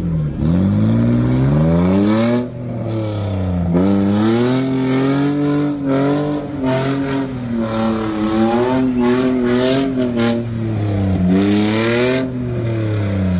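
Small tractor's engine revving up and down repeatedly as it pulls through deep mud, its pitch rising, falling back, and climbing again several times.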